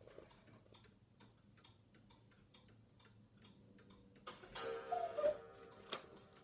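Faint, light ticking, with a short, louder sound carrying a wavering tone a little past halfway.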